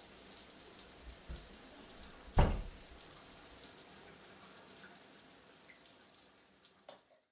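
Steady patter of falling water, with one loud thud about two and a half seconds in; the sound fades and cuts off near the end.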